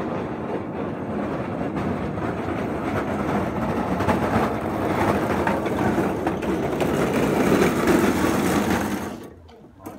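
Diesel locomotive engine working as the locomotive approaches, growing steadily louder, then dropping away suddenly about nine seconds in.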